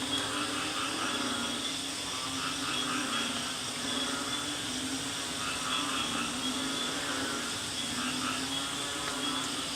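Tropical jungle night chorus: frogs calling in low, repeated pulses over a steady high-pitched insect drone, with a layer of other pulsing calls throughout.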